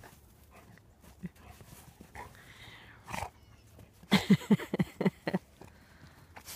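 Dog vocalizing while playing, with a quick run of about seven short, clipped sounds about four seconds in.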